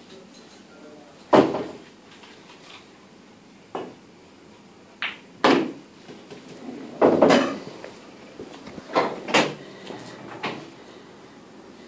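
Pool balls being struck and colliding: sharp clacks of cue on ball and ball on ball, about eight knocks spread across the stretch, the loudest about a second and a half in.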